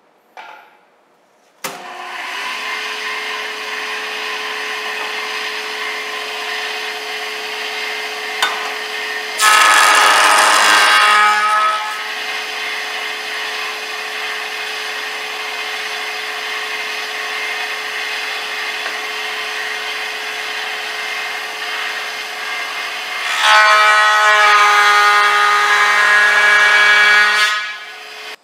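Delta 6-inch jointer switched on about two seconds in and running steadily with its motor hum. Twice it gets louder as the cutter head bites into a rough-sawn walnut board fed over it, briefly first and then for several seconds near the end. The board is warped, so the knives take wood only in patches.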